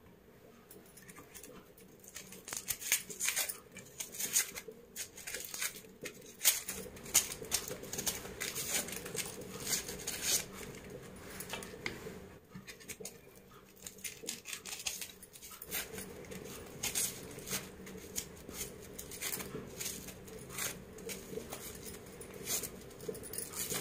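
Dry, papery red onion skins crackling and rustling as onions are peeled by hand, in irregular clicks and scrapes that start about two seconds in. Near the end a knife begins cutting into an onion.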